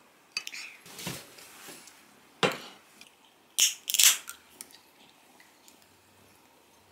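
Utensils clinking and tapping against dishes: several separate sharp clinks and a brief scrape, the loudest two about three and a half and four seconds in.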